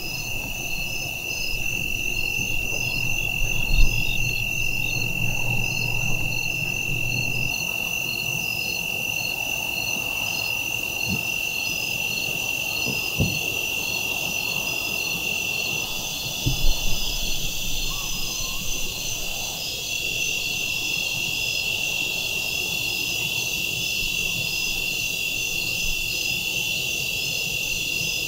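Crickets and other insects chirping together at dusk: a continuous high trill with faster pulsed chirping above it. A few brief low thumps come about four seconds in and again midway.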